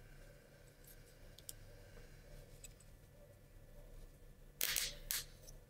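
Small plywood parts of a wooden mechanical model kit being handled and fitted together: a few faint clicks, then two short scraping rustles about half a second apart near the end.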